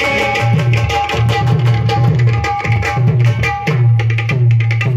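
Music: a hand drum plays a fast rhythm of deep, booming bass strokes and quick sharp strikes over a held instrumental note.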